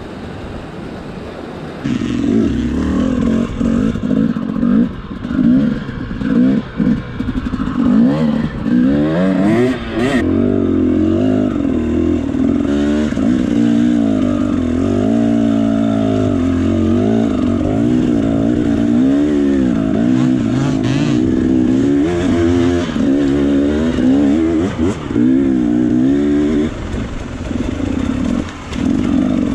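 Enduro motorcycle engine heard up close, revving up and down over and over as the bike picks its way up rough, rocky ground. It is quieter for the first two seconds, then loud and close for the rest.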